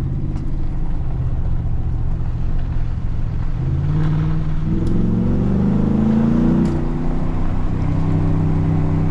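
Ford SVT Raptor's 6.2-litre V8 and exhaust running while driving. From about three and a half seconds in, the engine pitch climbs as the truck accelerates, drops sharply near seven seconds with an upshift, then runs steadily again.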